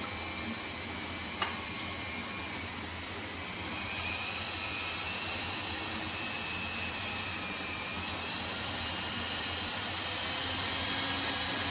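Electric hand mixer running steadily, its beaters whirring through cake batter in a glass bowl, with one short click about a second and a half in.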